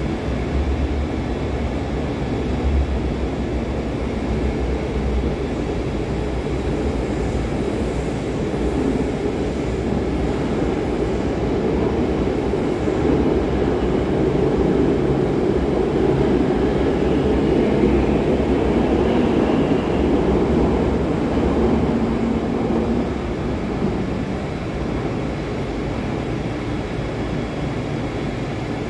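Vienna U-Bahn trains standing in an underground station: a steady low rumble that swells around the middle of the stretch and eases off near the end.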